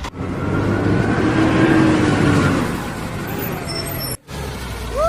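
Vehicle engine sound with a dense rushing noise and a faint whine that rises a little and falls. It cuts out suddenly for a moment about four seconds in, then a lower rumble comes back.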